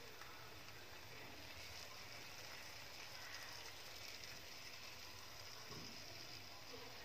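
Sugar syrup trickling from a saucepan onto hot, freshly baked kunafa, giving a faint, steady sizzling hiss.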